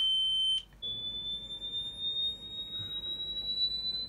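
A high-pitched electronic tone, held steady, cuts out about half a second in, then comes back slightly higher and slowly rises in pitch.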